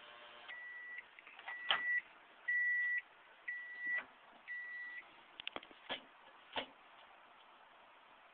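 Small microwave oven's running hum stops, then it gives five short beeps, about one a second, signalling the end of its cook cycle. A few sharp clicks and knocks follow as the microwave's door and the food are handled.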